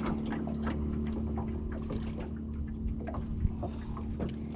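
Water lapping and trickling against a small fishing boat, with a few light knocks, over a steady low hum.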